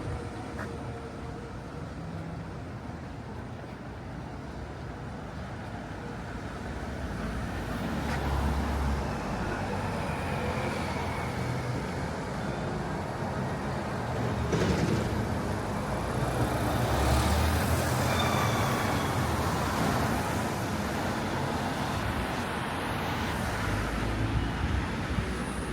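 Outdoor street ambience with road traffic passing. The noise swells twice, about eight seconds in and again in the middle stretch, as vehicles go by.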